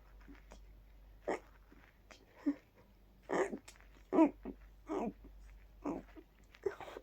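A rapid series of short, stifled sneezes, about one a second, each held back in the nose and throat, the loudest about four seconds in; the tickle driving them comes from a cold.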